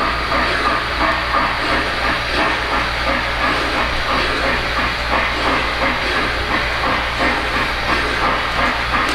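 O-gauge model steam locomotive running on the layout, its onboard sound system giving a steady steam hiss with a regular pulsing chuff, over a low electrical hum.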